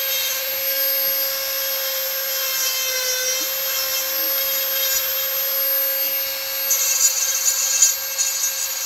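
Dremel rotary tool running with a steady high whine, its burr cutting into a wooden carving. Near the end the cutting gets louder and scratchier in short spurts.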